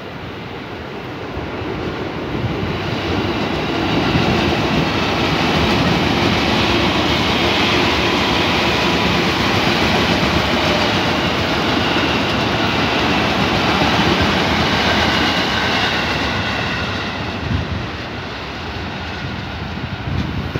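KRL commuter electric train passing on the double track, its wheels running on the rails. The noise builds over the first few seconds, holds steady, then eases off after about sixteen seconds as the train goes by.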